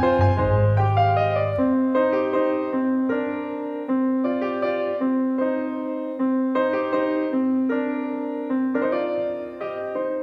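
Gentle piano music, a slow pattern of notes changing about once a second; a low bass part drops out about a second and a half in.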